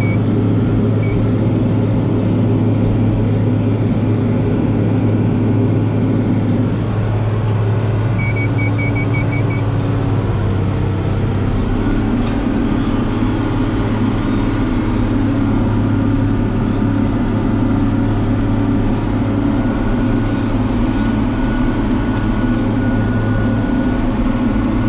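Tractor engine running steadily under load while pulling a baler through straw. About eight seconds in, a quick run of about six short electronic beeps sounds over the drone.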